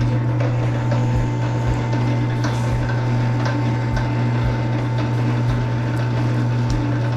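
Electric wire-stripping machine running with a steady low hum as a thick cable is fed through its largest hole, with a few faint knocks. The blade is only just scoring the plastic insulation, not stripping it.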